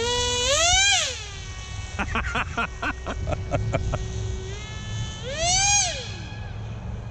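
Electric motor of a large RC flying wing (Turnigy Trackstar 780KV brushless on 12S, spinning a 12x4 APC prop) whining loud as the throttle is pushed up and let back down twice, about a second in and again near the end, with a steady lower drone in between. A quick run of short pulses sounds between the two throttle bursts.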